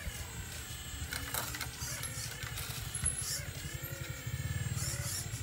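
Radio-controlled long-reach excavator running with a steady, fast-pulsing buzz while its bucket works the soil, with some light scraping.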